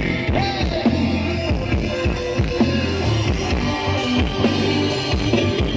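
Loud band music with electric guitar, heavy bass and drum kit keeping a steady beat, played through a rot hae sound truck's loudspeaker system during its sound check.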